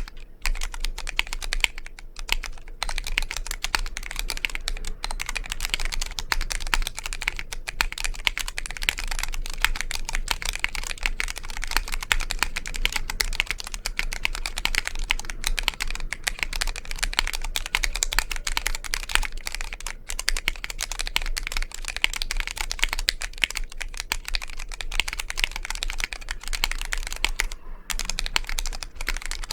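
Fast, continuous typing on a Vortex POK3R mechanical keyboard with Cherry MX RGB Red linear switches, a dense run of key clacks broken only by short pauses about two seconds in and near the end. A steady low hum runs underneath.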